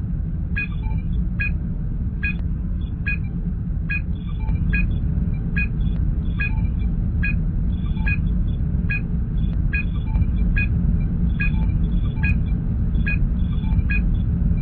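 Science-fiction starship ambience sound effect: a steady low engine rumble with a short two-tone scanner blip repeating a little more than once a second.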